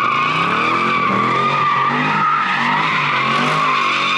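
Chevrolet Camaro doing a burnout: tires spinning with a steady, unbroken squeal while the engine runs hard underneath, its note wavering up and down.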